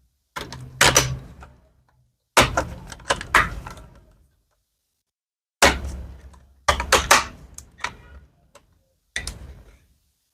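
Plastic screen bezel of an Acer laptop being pressed onto the display lid, its clips snapping into place: five clusters of sharp clicks and knocks with short silent gaps between them.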